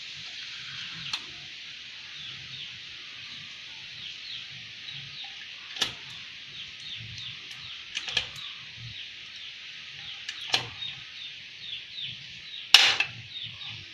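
Hand pop-rivet gun squeezed on the stainless steel end cap of a motorcycle racing muffler: sharp metallic clicks and snaps every couple of seconds, the loudest snap near the end. Steady high chirping runs underneath.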